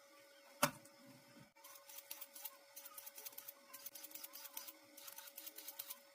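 A single sharp knock, then after about a second and a half a continuous run of quick, irregular light clicks and crackles over a faint steady hum.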